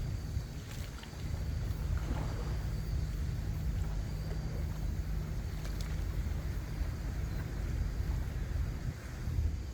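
Wind buffeting the microphone, a gusting low rumble over the wash of the sea, with a few faint clicks.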